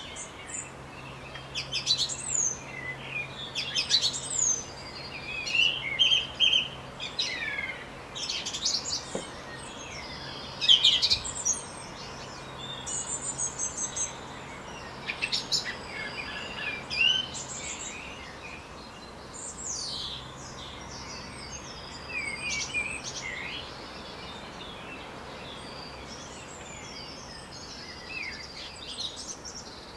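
Wild birds calling and singing: many short high chirps and whistled notes, busy at first and sparse near the end. A faint steady low hum runs underneath for most of it.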